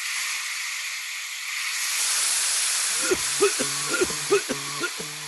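A steady hiss that grows louder about two seconds in. From about three seconds in, a quick run of short pitched sounds that rise and fall, about three a second, plays over it.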